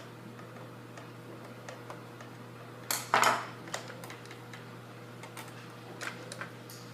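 Small clicks and ticks of a screwdriver working a screw out of a plastic Nerf gun shell, with one louder plastic clack about three seconds in, over a steady low hum.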